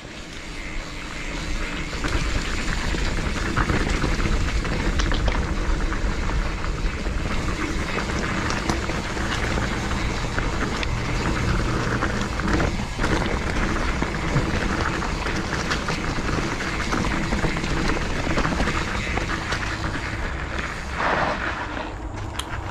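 Mountain bike riding down a dirt forest trail: steady tyre and trail noise with frequent small clicks and rattles, under background music.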